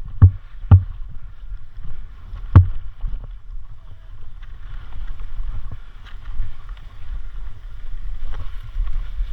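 Low wind rumble on the microphone with three sharp thumps: two close together just after the start and a third, equally loud, about two and a half seconds in.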